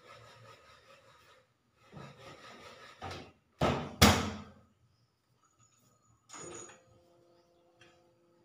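Motorcycle seat being set back on and pressed down into its latch: some handling noise, then three sharp knocks about three to four seconds in, the last two the loudest.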